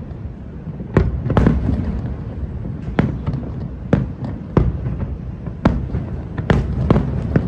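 Aerial fireworks shells bursting: about eight sharp bangs at irregular intervals over a continuous low rumble.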